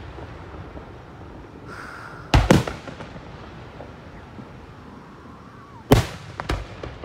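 Aerial firework shells bursting: two loud bangs about three and a half seconds apart, each followed by a second, smaller crack.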